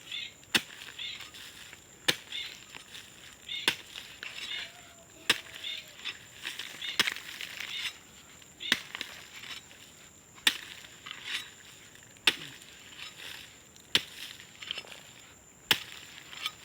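Hoe chopping into dry ground to dig planting holes: about ten sharp strikes, one every second and a half to two seconds, with scraping of soil between them.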